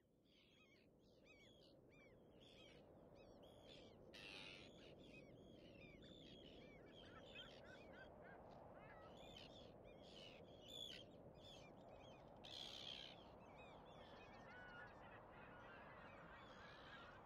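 Faint chorus of many seabirds giving short, hooked, honking cries over a steady wash of surf, fading in from silence over the first few seconds. Two brief louder rushes of surf come about four and twelve and a half seconds in.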